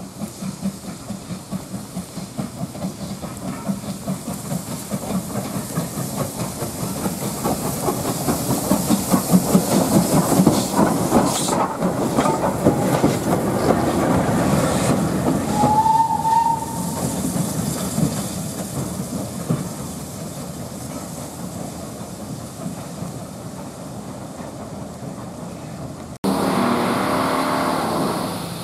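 Steam locomotive approaching and passing close by, with rhythmic chuffing and wheel clatter that build to their loudest as it goes past, and a brief high squeal about halfway. Near the end the sound cuts to the steady hiss of steam escaping from LMS Black Five 45428 standing in steam.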